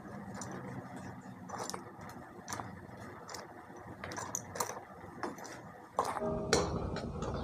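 Water boiling in a stainless steel stockpot, with splashes and clinks as fried chicken feet are dropped in a few at a time. A sharper clatter with a brief metallic ring comes about six seconds in.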